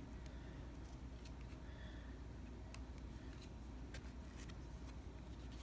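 Faint, scattered clicks of baseball trading cards being handled and flipped through, over a low steady hum.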